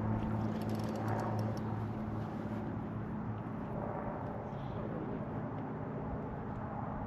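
A small engine running steadily with a low hum, which fades over the first couple of seconds into a quieter steady rumble.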